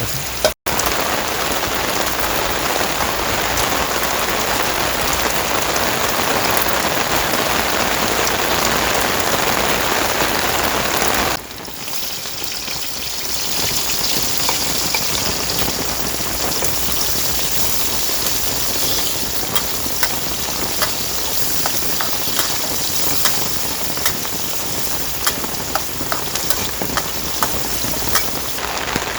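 Heavy rain falling steadily. About eleven seconds in the sound changes abruptly: it becomes lighter and hissier, with many separate drops ticking close by.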